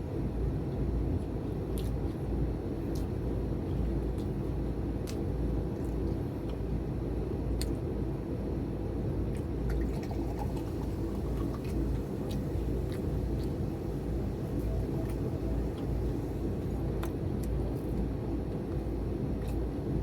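Steady low rumbling background noise, with scattered sharp clicks from chewing and crunching crispy deep-fried pork.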